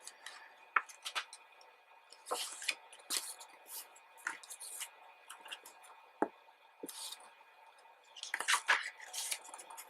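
Pages of a photo album being turned and handled by hand: faint paper swishes and small clicks and taps, coming irregularly every second or so.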